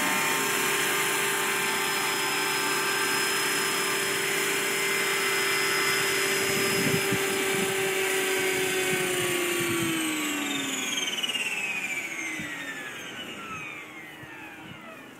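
Electric 500-size RC scale helicopter with a torque-tube and gearbox drive, its motor and gears whining steadily while it sits on the ground with rotors turning. About nine seconds in, the power is cut and the whine falls steadily in pitch and fades as the rotors spin down.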